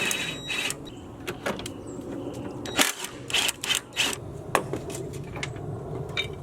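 Scattered, irregular metal clicks and knocks of hand tools working the engine mount's bolts, over a low steady hum.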